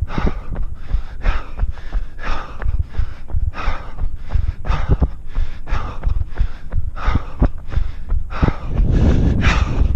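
A runner breathing hard, in rhythmic gasps about twice a second, near the end of a fast 5 km run. Under the breathing are footfall thuds and wind rumble on a body-worn microphone.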